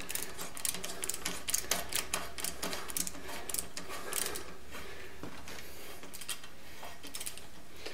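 Ratcheting tap wrench clicking in quick irregular runs as a Heli-Coil tap is started into a cast-iron exhaust manifold through a drill guide. The clicks thin out after about five seconds.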